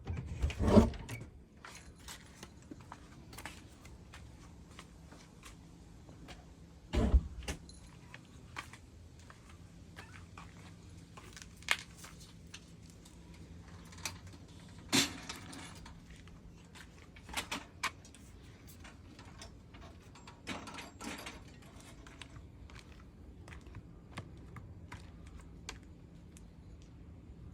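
Scattered light rustles, clicks and taps over a quiet background, with a louder thump just under a second in and another about seven seconds in.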